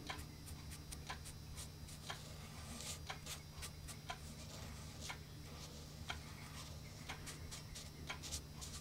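Faint, irregular light ticks of a bluing pen's tip dabbing against the cut steel muzzle of a shotgun barrel, over a low steady hum.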